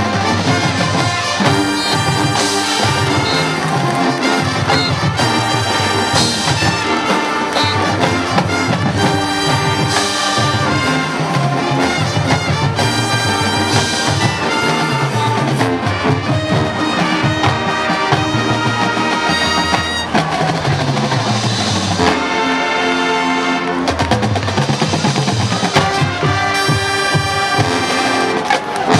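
High school marching band playing its field show: a full brass section with percussion, loud and continuous.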